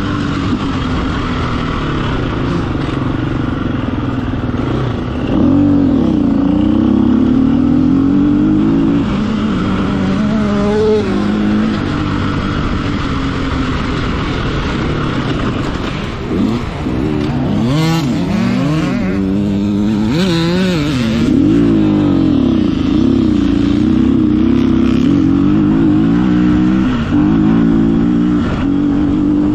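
Off-road motorcycle engine running hard, its revs holding steady for stretches and swinging quickly up and down in between as the throttle is worked, most often around the middle.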